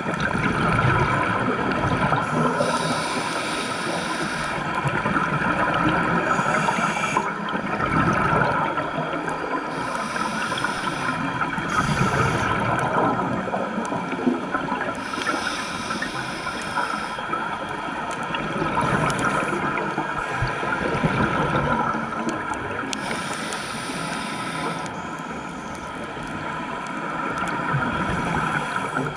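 Scuba diver's regulator breathing, heard underwater: bursts of exhaled bubbles come back every three to four seconds over a steady underwater rush.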